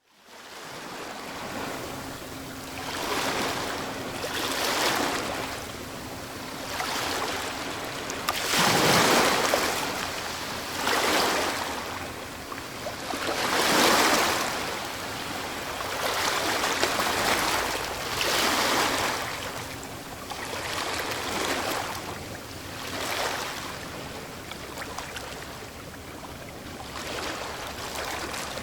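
Sea waves breaking on a shore, swelling and washing back every few seconds, with the biggest breakers about nine and fourteen seconds in.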